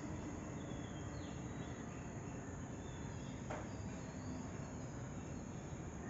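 Quiet room tone: a steady low hiss with faint, short high chirps every second or so, and one faint click about halfway through.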